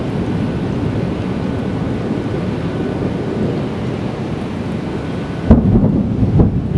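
Thunderstorm: a steady low rumble of thunder over rain, then a sudden loud thunderclap about five and a half seconds in, followed by a second crack.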